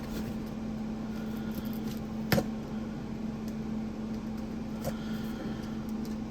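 Steady low hum with one sharp click about two and a half seconds in and a fainter click near five seconds, made while a shipped package is being opened by hand.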